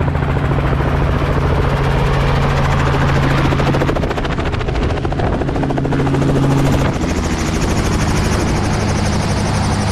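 Robinson R44 Raven II helicopter running on the ground with its rotor turning: a steady six-cylinder piston engine drone under a rapid, even rotor beat. The low tones shift slightly about seven seconds in.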